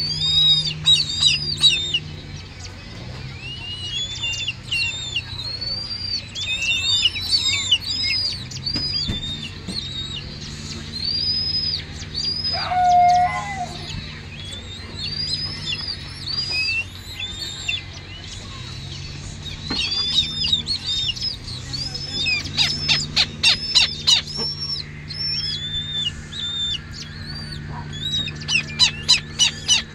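Downy raptor chick giving repeated high, arching begging chirps while being hand-fed, with two fast runs of ticking calls near the middle and the end. A steady low electric-fan hum runs underneath.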